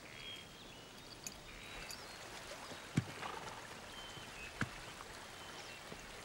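Two small stones plopping into a lake, about a second and a half apart, over faint quiet ambience with a few brief high chirps.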